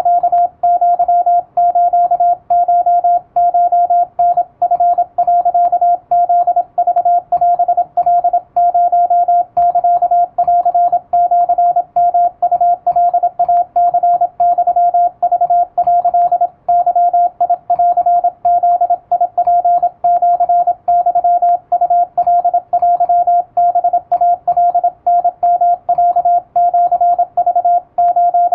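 Morse code sent with an electronic keyer: a single steady tone keyed on and off rapidly in dots and dashes, with short breaks between characters. It is Japanese Wabun code sent at high speed.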